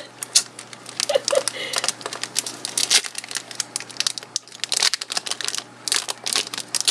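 Foil wrapper of a Yu-Gi-Oh booster pack crinkling and tearing as it is ripped open by hand: a dense, irregular run of crackles.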